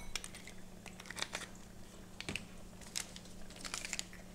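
Light, irregular clicks, taps and crinkling of kitchen items being handled and moved about on a countertop during tidying, over a faint steady low hum.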